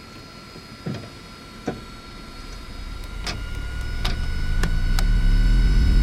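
Airbus A320's twin turbofan engines spooling up to takeoff thrust: a steady whine creeping up in pitch over a low rumble that grows steadily louder, with a few sharp clicks and rattles, cutting off suddenly at the end.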